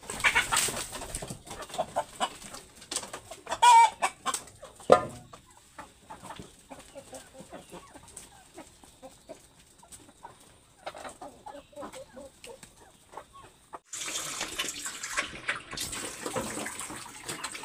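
Chickens clucking and pecking at scattered food, with a loud squawk about four seconds in. About fourteen seconds in, this gives way to a steady hiss of water splashing over a pig in its pen.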